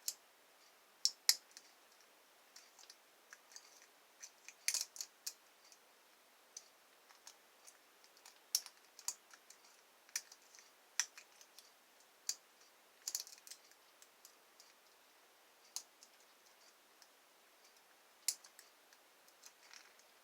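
Lock pick working the pins inside a pin-tumbler lock: small, sharp metallic clicks at an irregular pace, some in quick clusters.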